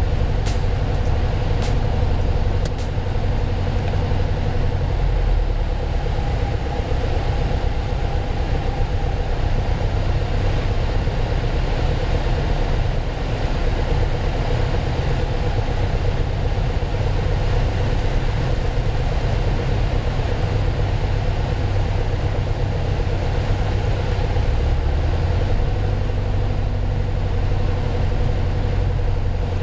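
Piper Archer II's four-cylinder Lycoming engine and propeller droning steadily, heard inside the cabin with wind noise over the airframe. The low drone changes slightly near the end.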